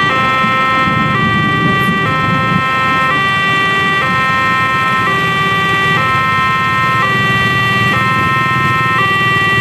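Railway level-crossing warning alarm sounding a repeating two-tone electronic chime that switches pitch about once a second, over the low rumble of motorcycles and cars queued at the crossing.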